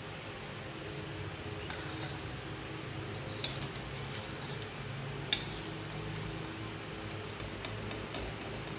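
Scattered clinks and taps of kitchen utensils on dishes, the sharpest about five seconds in and several more near the end, over a steady low hum.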